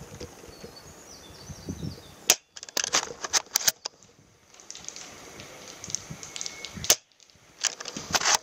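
Airsoft gunfire from a scoped airsoft sniper rifle: sharp cracks and clicks in bunches about two, three, seven and eight seconds in.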